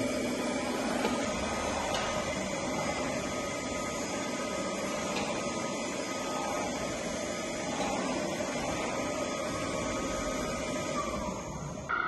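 Homemade robot vacuum cleaner running: its suction fan and small wheel motors whir steadily, with a constant hum, as it drives across a tiled floor.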